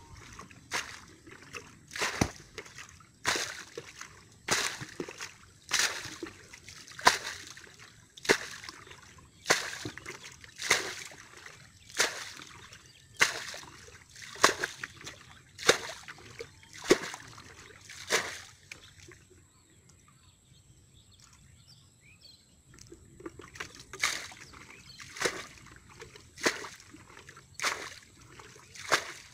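Muddy water being bailed out of a shallow paddy pool with a plastic bucket to drain it: a steady run of scoop-and-throw splashes, about one every second, with a pause of a few seconds about two-thirds of the way through before the splashes resume.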